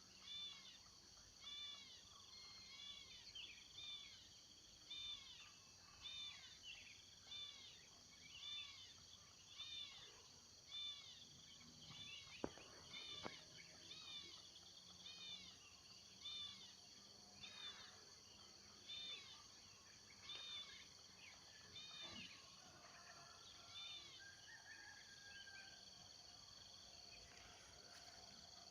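Small grassland songbird known locally as cincilak padang, calling over and over with short, arched notes that rise and fall, about one a second, over a steady high hiss. There are two sharp clicks about twelve seconds in, and the calls thin out near the end.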